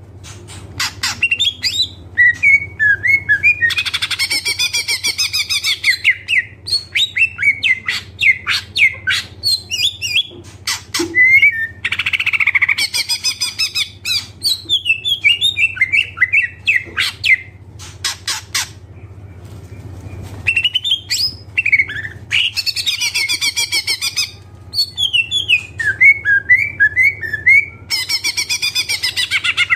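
Cucak ijo (green leafbird) singing vigorously: long runs of rapid chattering phrases, sharp clicks and squeaky whistled notes, full of mimicked song, broken by short pauses. A low steady hum lies beneath.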